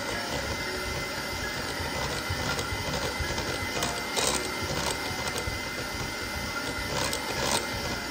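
Electric mixer running steadily with a faint high whine, beating cookie dough ingredients such as butter and powdered sugar in a bowl, with a few sharp knocks along the way.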